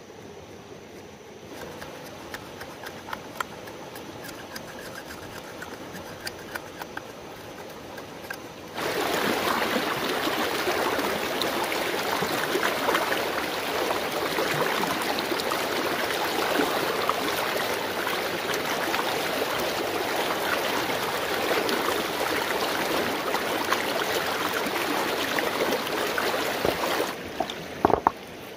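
A shallow rocky stream running over stones, loud and steady from a sudden cut about nine seconds in. Before that, quieter water under a run of light taps and scrapes from a hand tool on rock, and near the end a few sharp splashes as hands work in the water.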